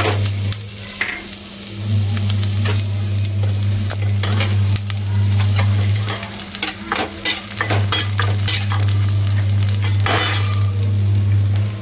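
Chopped onion sizzling as it fries in hot oil, while a steel slotted spatula stirs it and scrapes and taps against the nonstick pan. A loud low hum runs underneath and drops out briefly twice, about half a second in and again around six seconds.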